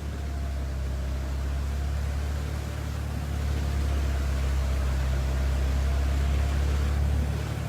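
Force Gurkha SUV's diesel engine running at low, steady revs as it creeps through deep floodwater, a low drone heard from inside the cabin that grows slightly louder partway through.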